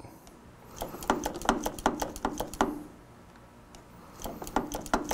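Front brake lever and master cylinder of a 2005 Suzuki GSX-R750 being pumped by hand to bleed the brakes: a run of light clicks and clacks, a pause of about a second and a half, then more clicks near the end. The lever is building no pressure, and the mechanic is beginning to worry that the master cylinder is worn out.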